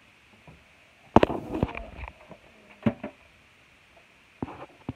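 Plastic toys clattering and knocking as they are handled in a toy bin. There is a cluster of knocks about a second in, single knocks around two and three seconds, and a few quick clicks near the end.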